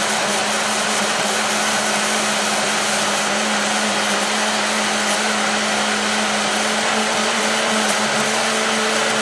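Yabano portable personal blender running steadily at full speed, its motor whirring with a constant hum as the blade purées banana and berries into a smoothie.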